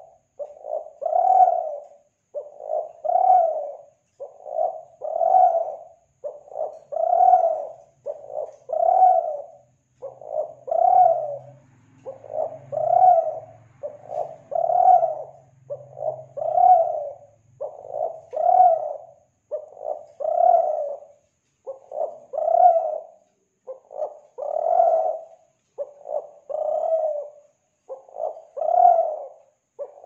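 Kelantan-type spotted dove (tekukur) cooing: a short phrase of low notes, a quick lead-in followed by a louder, longer coo, repeated evenly about every two seconds.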